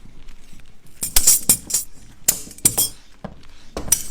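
Sharp clinks and taps of hard objects, about six strikes at uneven intervals, from tools working handmade hard candy.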